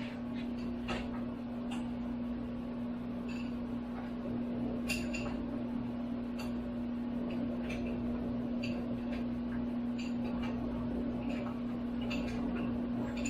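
Hand wrenches working the screws that hold a Bridgeport milling machine's head, giving irregular metal clicks and taps, over a steady low shop hum.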